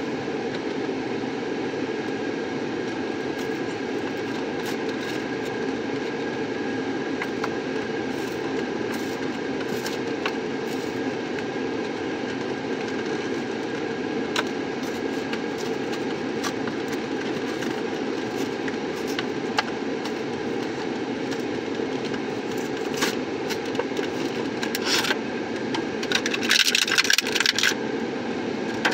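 Steady drone of a car's engine and ventilation fan, heard from inside the cabin. Small clicks and rustles from handling a plastic-and-cardboard toy package run through it, with a louder burst of crinkling near the end.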